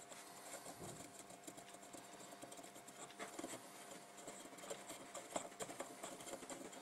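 Faint, quick scratchy rubbing of a cotton bud scrubbing a printed circuit board around an IC's legs, cleaning off leaked capacitor residue.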